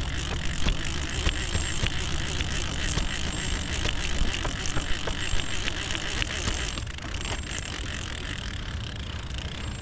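Fishing reel being wound in, a fast run of small clicks that thins out about seven seconds in, over a steady low rumble.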